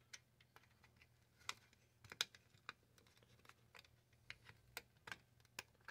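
Faint, irregular small clicks and taps from metal hemostats handling component leads on a vacuum-tube TV circuit board. There are about a dozen of them, with the loudest a little after two seconds in.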